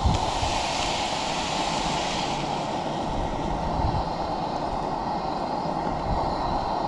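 Half-and-half poured from a carton into a hot skillet of browned pork sausage, sizzling with a bright hiss for the first two seconds or so, then settling. Underneath runs a steady rush with a low rumble from wind on the microphone and the camp stove's burner.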